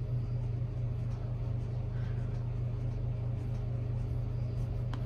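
Steady low hum, with faint light scratching of a felt brush-tip pen on paper as it writes and fills in a shape.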